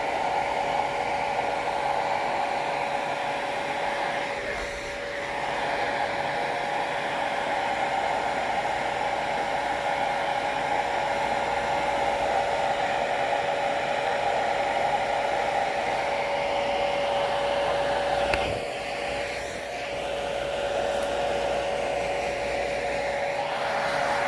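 Hair dryer running steadily, a rushing blow with a constant whine. Its sound dips briefly twice, and there is one short knock about three-quarters of the way through.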